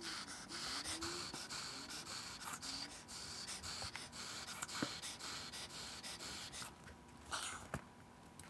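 Foam and fabric rustling and scraping under the hands as a mouth plate is pressed into a foam puppet head, with a few light clicks. The rustling eases off about seven seconds in.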